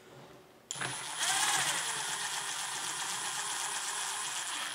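Cordless power driver motor starting under the trigger about a second in, speeding up briefly, then running steadily with a high whine as it drives a screw into the back of a gel blaster.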